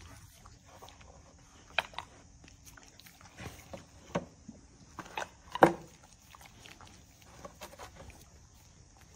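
A husky nosing and pushing a cardboard milk carton across a concrete floor: a scatter of short, sharp knocks and scrapes, the loudest about halfway through.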